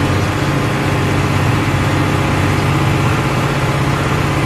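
Old bus engine running steadily while the bus drives along, heard from inside the driver's cab as a constant low hum over road noise.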